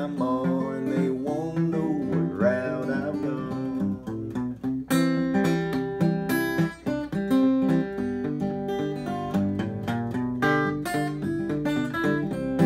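Steel-string acoustic guitar fingerpicked with a thumbpick in Travis style: a steady alternating bass under a picked melody line.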